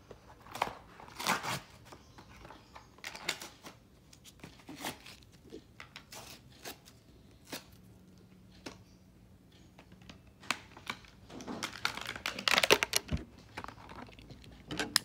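Toy-car packaging being opened by hand: scattered crinkles, tearing and small clicks, with a louder flurry about twelve seconds in.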